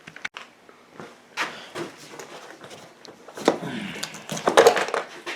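Scattered clicks, knocks and rattles of hand-work on a small quad as disassembly to reach the carburettor begins, busier in the second half.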